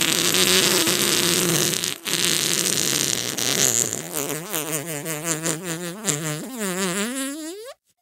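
A long, drawn-out fart sound effect. It is raspy at first, with a brief break about two seconds in. From about halfway it turns into a fluttering blat whose pitch wobbles rapidly up and down, then rises and cuts off sharply near the end.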